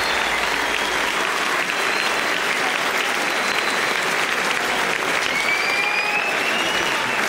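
Concert audience applauding, with a thin rising whistle heard about five seconds in.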